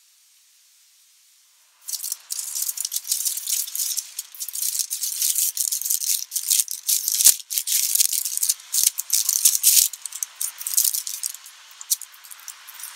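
Paper wrapping, a brown paper bag inside white paper, crinkling and rustling as a fish supper is unwrapped by hand: a dense, irregular crackle that starts about two seconds in, with a few sharper snaps.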